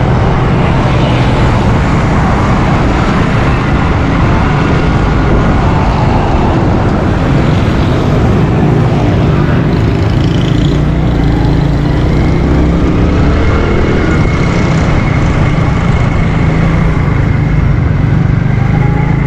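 Motorcycle engine running steadily under the rider, with wind and road noise on the bike-mounted camera's microphone; the bike slows down about halfway through.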